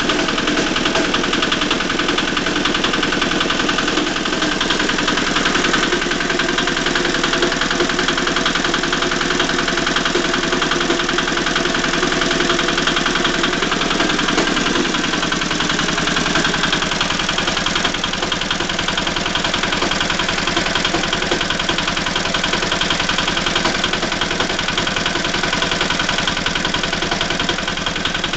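Walk-behind tractor engine running steadily with a rapid, even knocking from inside the engine: the engine knock that the owner is showing.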